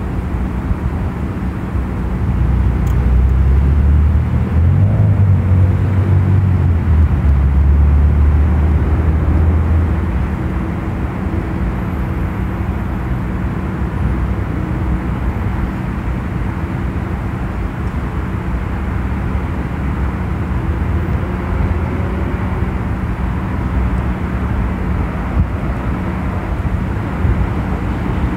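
Outdoor city background noise: a steady low rumble with a faint hum. The rumble grows louder about two seconds in, holds for several seconds, then settles back.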